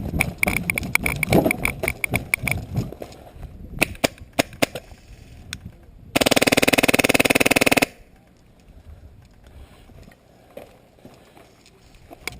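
Airsoft gun firing one full-auto burst of rapid, evenly spaced shots about six seconds in, lasting about a second and a half. Before it, a stretch of scattered clicks and rustling.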